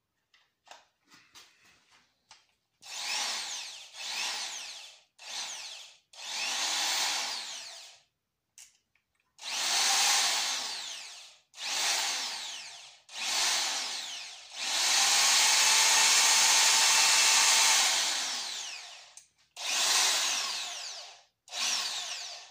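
Dorkel DRD-500-2 500 W corded impact drill running with no load in about ten short trigger pulls, each spinning up and coasting down, with one longer steady run of about four seconds in the middle. Its owner feels it sounds as if there is no grease inside.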